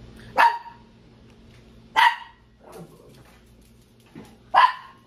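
A dog barking three times, single sharp barks spaced about two seconds apart.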